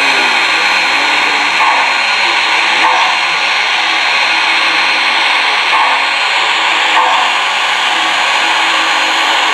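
Digital steam-locomotive sound from the MTH Proto-Sound 3.0 system in an HO-scale 2-8-8-4 Yellowstone model, playing as the model runs. A loud, steady steam hiss carries soft chuffs about once a second.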